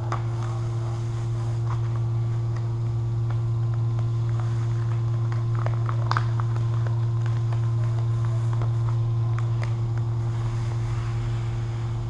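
A steady low hum runs throughout, with faint scattered taps and rustles over it.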